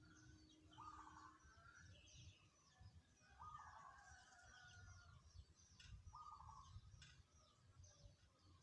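Zebra dove (perkutut) cooing its tumpang sari song, three short phrases about two and a half seconds apart. Small birds chirp faintly over it.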